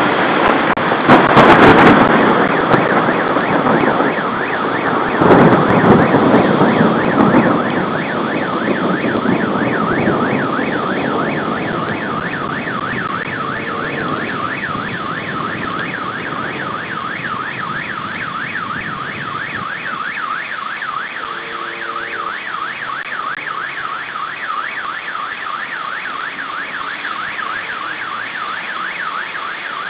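A car alarm warbling rapidly up and down without a break, over the noise of a thunderstorm's rain and wind. The storm noise is loudest in the first few seconds, with two loud swells about one and five seconds in, then settles to a steady hiss.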